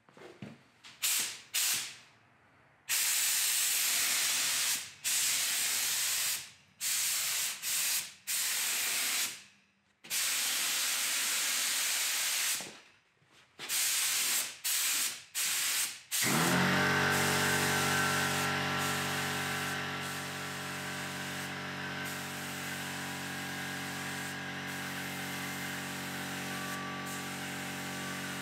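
Gravity-feed air spray gun spraying paint. It hisses in a series of passes, some short and some several seconds long, with brief breaks as the trigger is let go. About halfway through, the hiss runs on without a break and a steady hum comes in under it.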